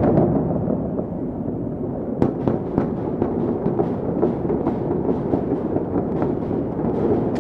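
Chinese fireworks going off: a continuous rumble of explosions, with a rapid crackle of many small sharp pops from about two seconds in.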